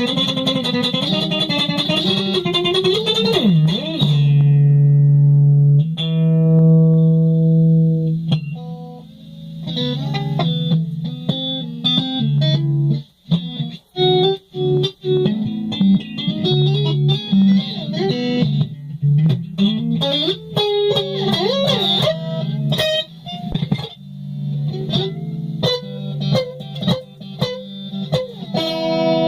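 Solo guitar improvisation: bent, wavering notes, long held notes, and short choppy runs with brief stops.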